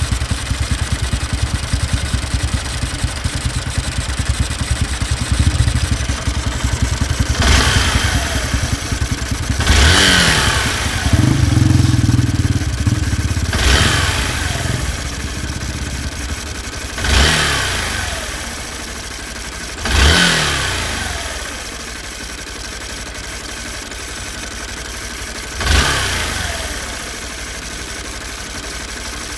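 Honda Bros 160's single-cylinder four-stroke engine idling, blipped about six times from a third of the way in, the revs rising quickly and falling back to idle each time. It carries a noise from inside the engine that appeared after the worn piston was replaced with original parts.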